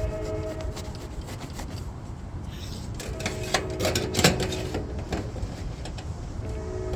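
Scraping, rubbing and light clicking of metal on the copper gutter while it is being soldered, busiest about halfway through. A steady mechanical hum made of several tones fades in and out behind it.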